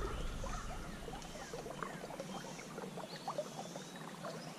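Stream water running and trickling, a steady wash full of small ticks, with faint bird chirps.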